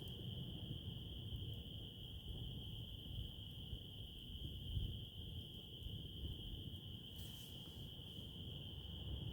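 A chorus of crickets trilling in one steady high unbroken tone, over a low rumble, with a brief soft hiss about seven seconds in.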